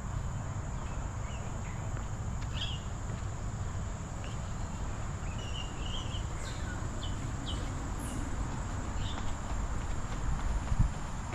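Tropical forest ambience: insects hold one steady high-pitched note, and short bird chirps come every second or so, with a brief warbling run about six seconds in and a rising whistle near eight seconds. A steady low rumble sits underneath.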